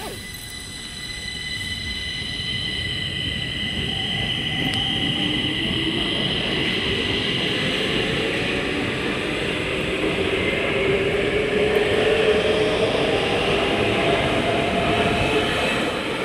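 Stockholm metro train pulling out of an underground station and accelerating away. Its motor whine rises steadily in pitch over the wheel rumble as it gathers speed, growing louder, and it begins to fade near the end as it enters the tunnel.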